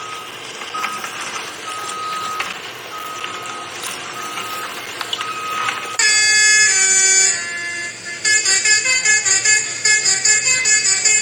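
A loud multi-tone vehicle horn starts about six seconds in with one long blast, then sounds in rapid short blasts, about three or four a second, from about eight seconds in. Before it, a steady background noise carries a short, repeated beep.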